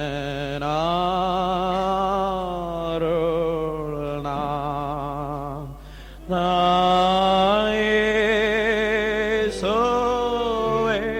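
A voice singing a slow devotional song in long held notes with vibrato, pausing briefly about six seconds in before going on.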